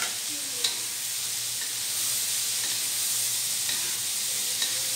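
Chopped long beans sizzling as they stir-fry in oil with shallots and chillies in a wok. A wooden spatula stirs them and knocks lightly against the pan a few times.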